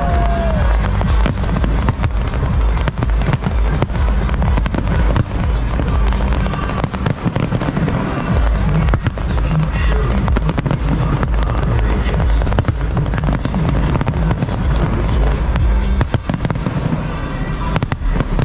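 A large aerial fireworks display bursting in quick succession, many bangs and crackles overlapping, over loud music.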